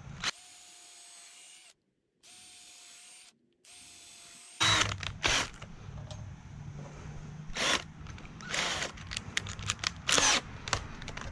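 A power drill: a faint steady whine with two sudden dropouts, then several short loud bursts over a low motor hum, with sharp knocks in between.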